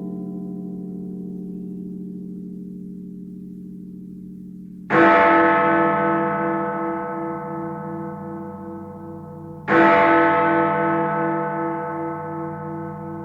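A large bell struck twice, about five seconds apart. Each stroke rings on and slowly fades, with a throbbing hum in its low tone, and the ring of an earlier stroke is dying away at the start.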